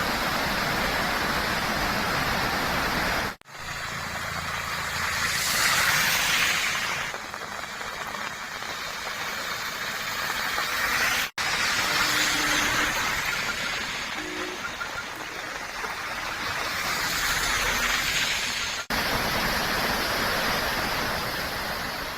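Steady rushing noise of a rain-swollen mountain stream in spate, fast water running at full force. The sound breaks off for an instant three times, about a sixth, half and five-sixths of the way through, where separate clips are joined.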